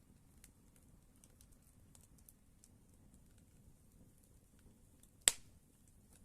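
Campfire burning with faint, scattered crackles and one loud, sharp pop of the burning wood about five seconds in.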